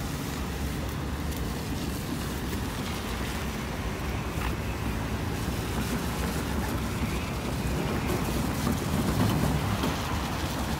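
Road traffic driving over a railroad grade crossing, tyres hissing on the wet pavement, with wind buffeting the microphone. It gets a little louder about eight seconds in.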